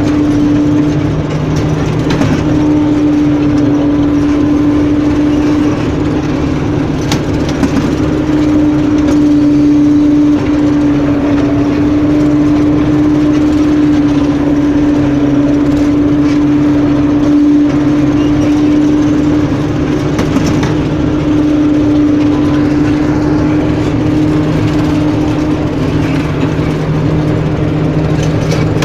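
Harvest machinery running steadily in a wheat field: a loud, unbroken engine-and-machine drone with one strong constant hum.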